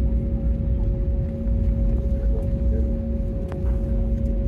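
Jet airliner cabin noise during the landing roll: a loud, steady low rumble from the engines and runway, with a steady hum running through it.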